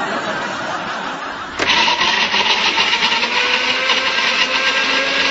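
Electric countertop blender motor starting suddenly about a second and a half in and running steadily at full speed, its whine rising slightly, then stopping abruptly at the end. A steady rushing hiss comes before it.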